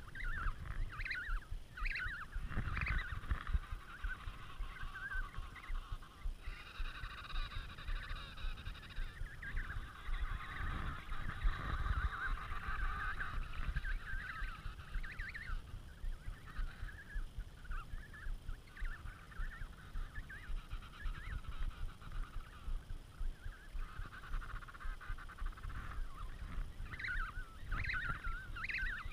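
Emperor penguin colony calling: many adults and chicks calling at once in a continuous, overlapping chorus, with a low rumble underneath.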